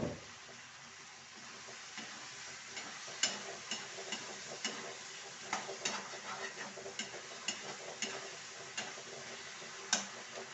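A spoon stirring food in a metal cooking pot, clicking and scraping against the pot about twice a second over a steady sizzle of food cooking.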